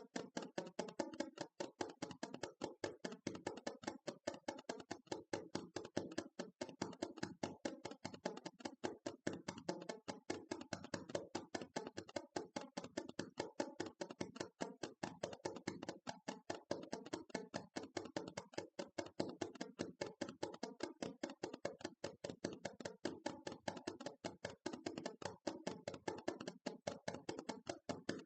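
ASMR tapping: rapid, continuous light taps, several a second, at an even pace.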